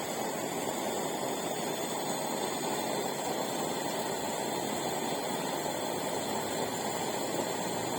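Steady rushing roar of a pressurised kerosene flame jet preheating a pressure lantern, the 'spray-fire' lighting method that burns extra kerosene.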